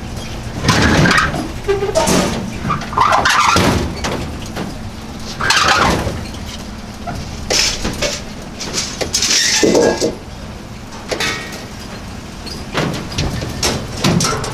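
A heavy steel vending machine being walked across a pickup's bed to the tailgate: irregular metal scrapes, knocks and clatter every second or two, over a steady engine hum.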